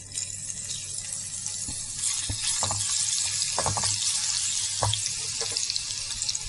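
Crushed garlic sizzling in hot oil in a nonstick pan, the hiss building over the first second or two and then holding steady. A few light knocks of a silicone spatula against the pan as the garlic is stirred.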